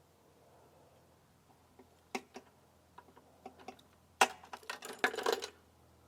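Small hand-tool and hose-clamp clicks as a hose clamp is fitted onto a lawn mower fuel line. A few scattered clicks about two seconds in, then a rapid run of louder clicks and clatter lasting about a second near the end.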